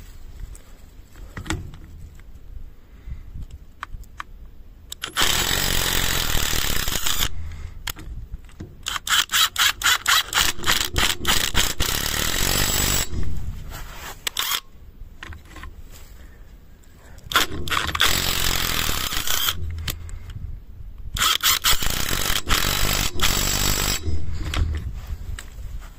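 Yato YT-82805 cordless impact wrench hammering on the rusted wheel nuts of a steel car wheel, in four bursts of two to four seconds each, the second starting as a string of short quick blips on the trigger.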